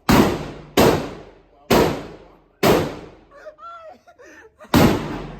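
Five gunshots, roughly one a second with a longer pause before the last, each followed by a ringing echo that dies away quickly. A voice is heard faintly in the pause.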